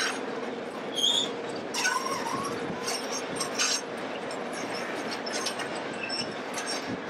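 White Pass & Yukon narrow-gauge passenger coaches rolling past: a steady rumble of wheels on rail with scattered clicks, and brief high wheel squeals about one and two seconds in.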